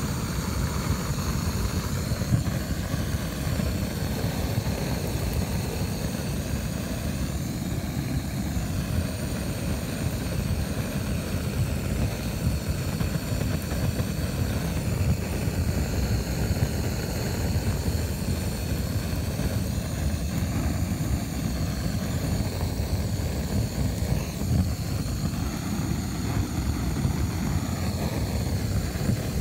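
Handheld gas torch burning steadily, a low rumble with a hiss, as its flame singes the fur off a small animal carcass.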